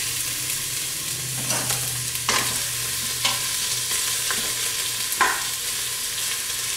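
Chopped onion sizzling as it sautés in hot coconut oil in an Instant Pot's stainless steel inner pot. A spoon stirring the onion knocks and scrapes against the pot about once a second.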